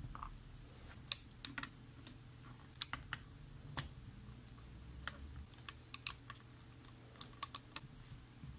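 Irregular sharp little clicks and taps of a small crosshead screwdriver on the screws and metal chassis of a cassette transport, as the reel base's screws are undone.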